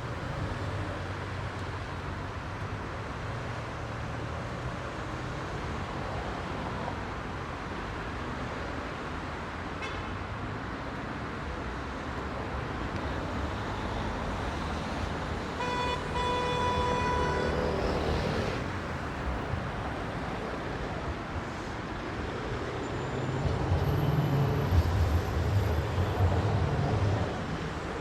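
Heavy rush-hour city traffic: a steady wash of engine and tyre noise. About halfway through, a car horn sounds for about two seconds, and near the end a louder low rumble rises and falls as a large vehicle passes.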